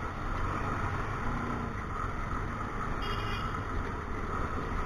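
Bajaj Pulsar NS200's single-cylinder engine running while the bike rides through traffic, a steady low drone with road noise. The bike is ailing, and it is kept running because it will not restart once stopped.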